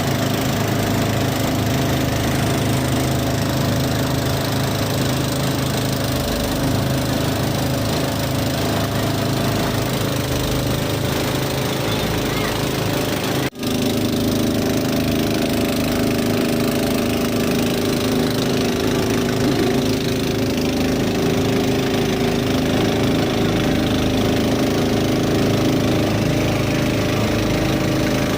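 A steady engine running at an even speed, with a split-second dropout about halfway through.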